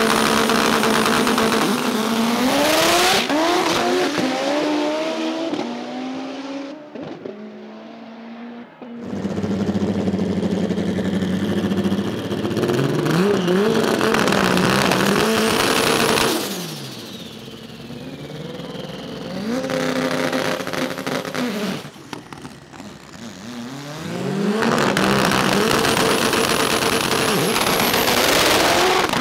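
High-revving Honda drag-race engines launching hard down a quarter-mile strip. Each run rises in pitch through several gear changes. Three or four runs come one after another, separated by brief quieter gaps.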